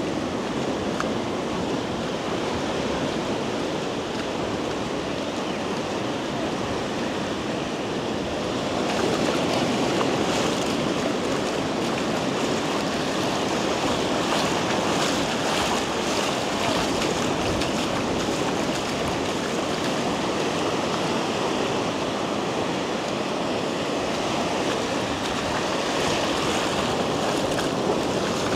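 Ocean surf breaking and washing onto a sandy beach: a steady rush of waves that grows a little louder about nine seconds in.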